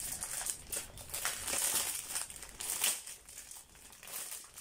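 Clear plastic packaging bag crinkling in irregular bursts as it is handled and opened by hand; the loudest crinkle comes near three seconds in.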